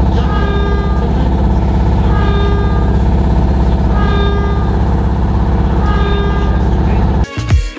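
Vinnytsia trolleybus standing at a stop, heard from inside the passenger cabin: a steady electrical hum with a siren-like tone that comes back about every two seconds. The caption calls it a muffled siren. Music cuts in abruptly near the end.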